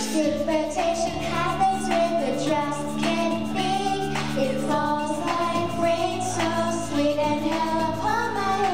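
A group of young children singing a song together over instrumental accompaniment.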